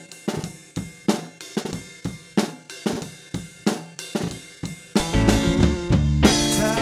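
Drum kit played in a steady groove, about three hits a second, recorded unprocessed through a single Shure SM57 dynamic microphone at the drummer's shoulder. About five seconds in, a backing music track comes in under the drums.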